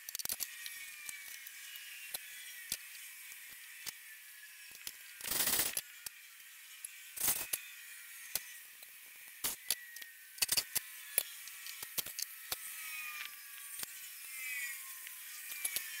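Metal tools clicking and knocking on a workbench, with two short bursts of an electric hand drill, about five and seven seconds in, drilling through thin sheet aluminium.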